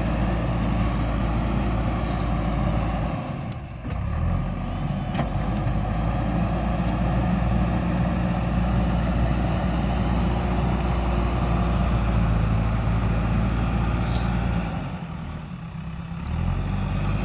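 Heavy diesel engine of earth-moving machinery running steadily, its low note dropping away briefly twice, about three seconds in and again near the end.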